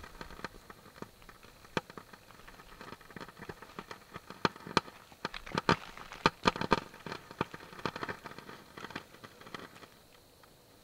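Footsteps crunching on loose river gravel and cobbles: irregular sharp crunches, some in quick pairs, that stop about ten seconds in.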